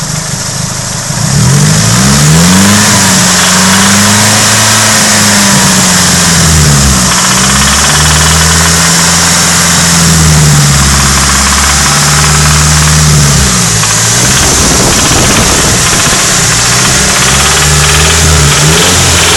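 Nissan SR20DET 2.0-litre turbo four-cylinder running and being raised from idle several times, held at low revs for a few seconds each time and then let back down. The engine rattles and knocks, a noise that shows only at about 2,000 to 2,500 rpm and sounds as if it comes from the head. It turned out to be worn big end bearings.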